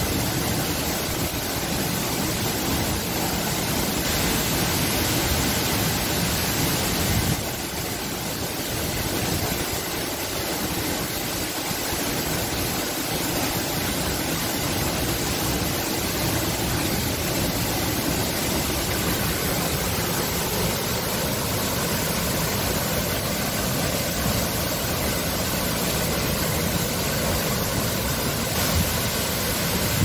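Steady, dense rush of two tall waterfalls plunging into a shallow rock pool, a little softer from about seven seconds in.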